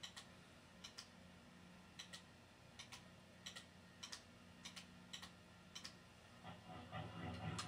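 Faint, short clicks, many in quick pairs, repeating irregularly about every half second to second over a steady low tube-amp hum. Near the end a faint guitar tone begins to swell up.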